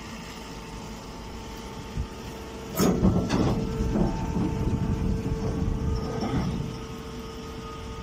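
Steady machine hum from a running hay baling press, with a sudden loud knock about three seconds in, followed by a few seconds of scraping and rustling as a pressed hay bale is handled at the baler's outlet.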